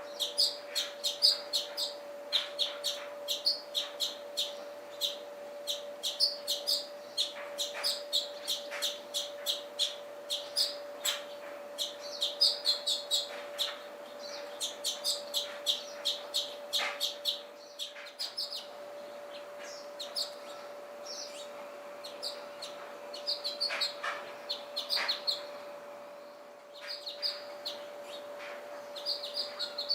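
A flock of small birds at a seed feeder chirping in quick, overlapping bursts, thinning out for several seconds past the middle and picking up again near the end, over a steady faint hum.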